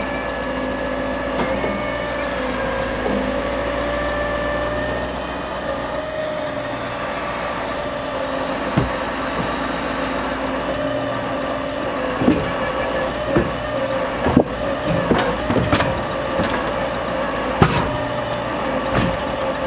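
Scania R580 V8 truck engine running to power the Epsilon Palfinger M12Z loader crane's hydraulics, a steady drone with a whine that bends slightly in pitch as the crane works. In the second half, several sharp knocks and thuds as the grapple sets pine logs onto the load.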